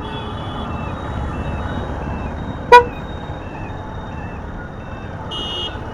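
Steady road and wind noise of a moving motorcycle in traffic, with one short loud vehicle horn toot about two and three-quarter seconds in and a shorter, higher-pitched toot near the end. A faint high beep repeats evenly throughout.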